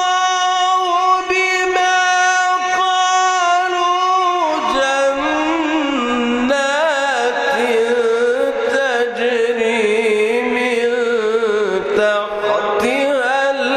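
A solo male voice reciting the Quran in melodic, drawn-out style: one long steady high note held for about four seconds, then a drop in pitch into wavering, ornamented melismas.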